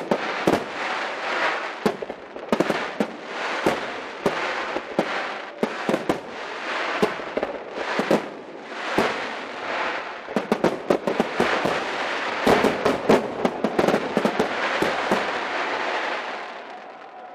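Aerial firework shells bursting over a dense, continuous crackle from gold crackling stars, with many sharp bangs coming in quick flurries around the middle. The crackle dies away near the end.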